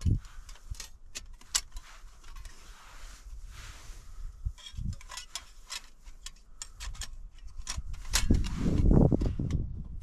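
Hands handling and unfolding a small flat metal and paper item, giving scattered light clicks and a soft rustle. A low rumble swells near the end and is the loudest sound.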